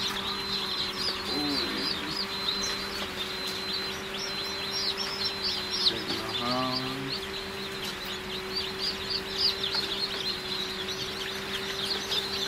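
Dozens of newly hatched chicks peeping nonstop, many short falling peeps overlapping, over a steady low hum.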